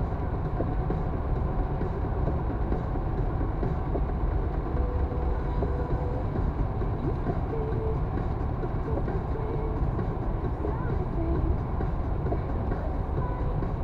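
Steady low rumble of a moving vehicle, with faint voices in the background.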